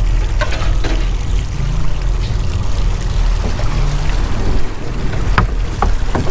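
A fishing boat's engine running steadily, with water sloshing along the hull as a cuttlefish cage is hauled up out of the sea on its rope. A few sharp knocks come near the end as the cage comes up alongside.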